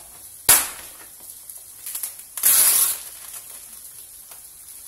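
Plastic film being torn off a packaged chicken tray: a sharp crackle about half a second in, then a longer crinkling rip about two and a half seconds in. Underneath is a faint steady sizzle from vegetables frying in a pan.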